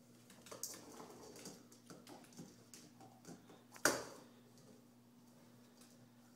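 Dog's claws clicking and scuffling on a hardwood floor as it paws and mouths a Sphero robot ball, with one sharp hard knock about four seconds in.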